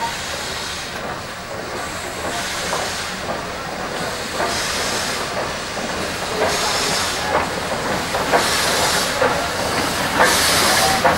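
Steam locomotive moving slowly, with rhythmic hissing bursts of steam about every two seconds and light metallic clanks of the running gear. It grows louder toward the end.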